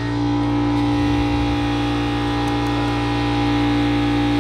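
Steady machine hum with several fixed tones that holds unchanged throughout.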